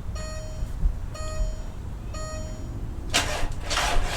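A 2002 VW New Beetle TDI's dashboard warning chime beeps about once a second. A short, loud rush of noise follows about three seconds in, as the car is tried on a weak battery.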